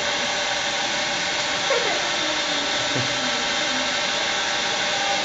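Metal lathe running steadily, turning a large plastic-like wheel blank while the cutting tool peels off curling shavings: an even motor and gearbox whir.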